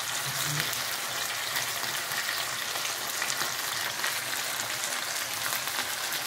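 Chicken pieces frying in hot oil in a pot on a stovetop: a steady, dense sizzling and crackling.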